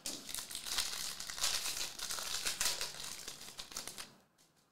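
Foil wrapper of a 2023 Donruss football card pack being torn open and crinkled, a dense crackle that stops about four seconds in.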